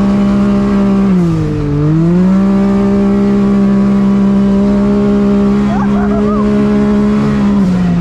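Can-Am Maverick X3 Turbo's turbocharged three-cylinder engine running at steady high revs under load, heard from inside the cab. The revs dip briefly about a second and a half in, then climb back and hold steady.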